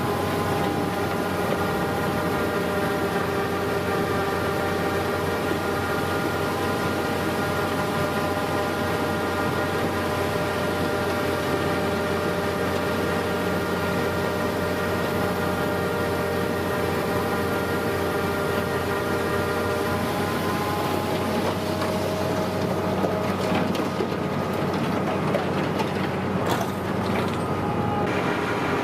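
Heavy snow-removal machinery running steadily: a steady engine noise with a stack of steady whining tones, which shift in pitch about twenty seconds in and again near the end.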